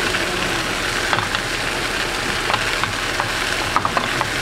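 Ribeye steaks sizzling in foaming butter in a frying pan, a steady hiss with scattered pops and crackles of spattering fat, several of them close together near the end as the butter is spooned over the meat.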